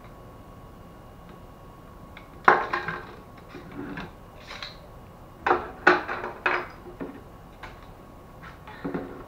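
Hard plastic and metal parts of a laser printer's fuser unit knocking and clattering as it is handled and taken apart by hand: a sharp burst of clacks about two and a half seconds in, a second run of knocks a few seconds later, and a few lighter clicks near the end.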